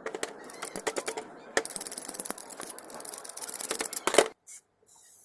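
Rapid, irregular clicking and rattling of small hard parts, growing denser partway through and stopping abruptly a little after four seconds in.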